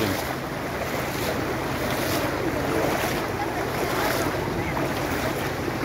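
Steady rush of muddy floodwater flowing over a tarmac street, with wind noise on the microphone.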